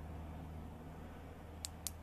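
Two quick, sharp clicks near the end, typical of a flashlight's tail switch being pressed to change modes, over a steady low hum.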